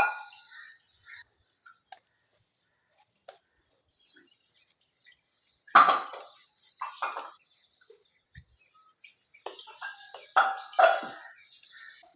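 A spoon clinking and scraping against a dish as masala seasoning is mixed into cooked noodles: a sharp clink at the start, then scattered strikes with quiet gaps and a busier run of clinks near the end.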